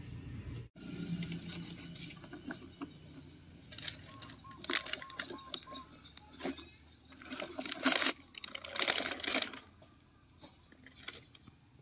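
Plastic toy truck being pushed over dry dirt and gravel: its wheels and body crunch and scrape in irregular bursts, loudest in the second half.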